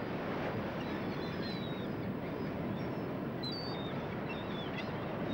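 Small birds chirping and whistling in short high calls over a steady rushing background noise.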